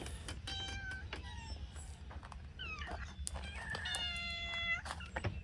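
A group of hungry outdoor cats meowing to be fed, several short meows from different cats and one longer, louder meow about four seconds in.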